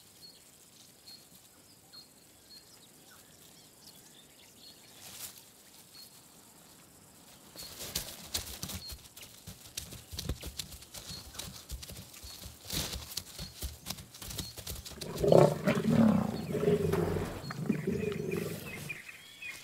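Lions growling over a freshly killed young giraffe, loudest for a few seconds about three-quarters of the way through. Before it there is a run of scattered crackles and knocks in the brush, and faint regular high ticks in the quiet opening.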